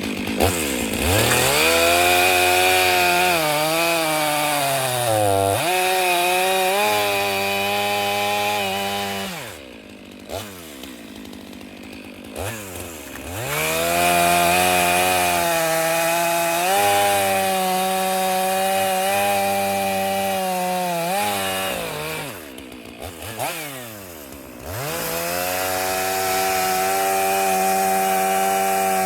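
Stihl chainsaw cutting wood at high revs, its pitch dipping and recovering under load, easing off to a lower, quieter note twice before revving up and cutting again.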